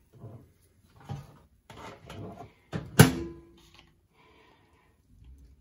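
Kitchen items being handled off to the side: a few soft knocks and scrapes, then a sharp clack about three seconds in with a short ring after it, as the broccoli is fetched.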